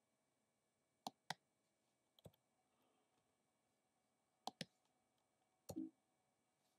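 A few light, sharp clicks, mostly in quick pairs, against near silence.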